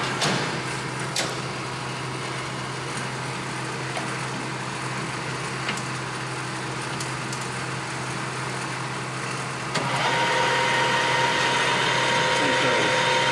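Clausing Colchester Master 2500 engine lathe: a few sharp clicks in the first second during a spindle speed change, then a steady hum until about ten seconds in, when the spindle comes up to speed at 1030 RPM and runs with a louder, steady whine.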